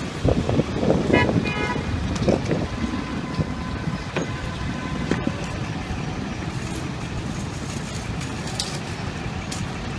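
City street traffic noise, a steady low rumble of vehicles. About a second in comes a brief, rapid run of high pitched beeps.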